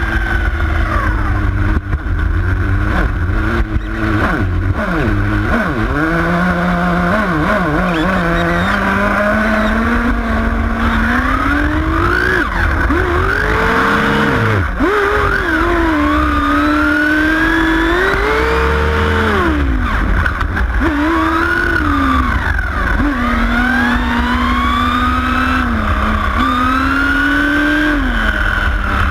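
Nitro RC car's small two-stroke glow engine running as the car is driven. Its pitch climbs and drops again and again with the throttle, over a heavy low rumble picked up by the camera riding on the car.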